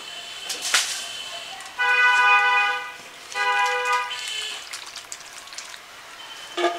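A vehicle horn honks twice at a steady pitch: a blast of about a second, then a shorter one. A couple of light knocks come before and after.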